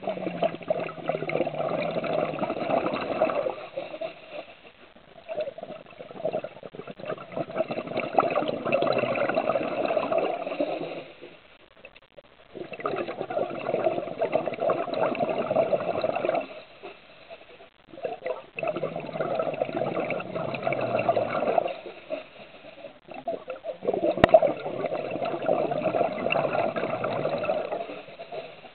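Scuba diver's regulator exhaust bubbling underwater in about five long bursts, one for each exhalation, with quieter pauses between them while the diver breathes in.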